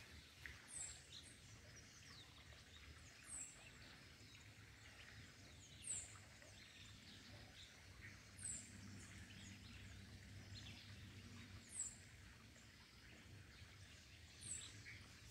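Near silence with a bird repeating a short, high, falling call about every two and a half seconds, six times, over a faint low hum.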